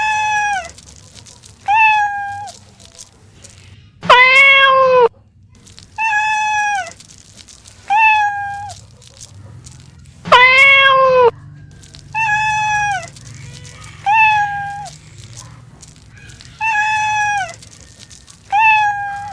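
Domestic cat meowing over and over, about one meow every two seconds: short high meows, with two longer, lower and louder ones about four and ten seconds in.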